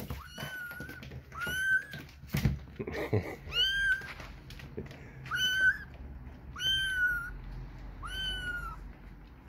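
Kittens mewing: about six high, thin mews, each rising and then falling in pitch, spaced a second or two apart.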